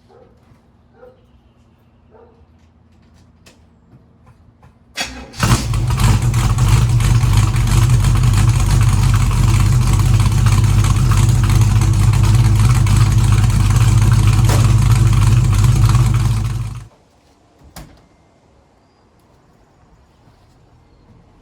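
Small-block Chevy 350 V8 cranks briefly and fires about five seconds in, then runs at a loud, steady idle through freshly fitted glasspack mufflers for about eleven seconds before being switched off, cutting out suddenly. A single sharp click follows a second later.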